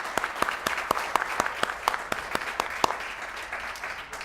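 Audience applauding, a dense patter of many hands clapping that slowly tapers off near the end.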